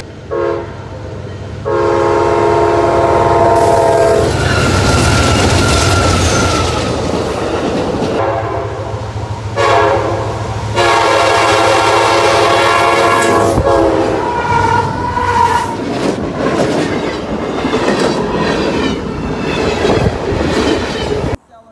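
Freight locomotive air horn sounding a multi-note chord in several long blasts: a brief one at the start, one from about 2 to 4 seconds, and one from about 10 to 13 seconds. Under and between the blasts, a freight train passes close by at speed, its wheels and cars rumbling and clattering.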